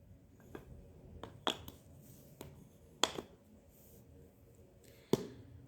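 Toy figures and a jigsaw puzzle piece being handled: about six light taps and clicks scattered across a few seconds, the last piece being fitted into the puzzle.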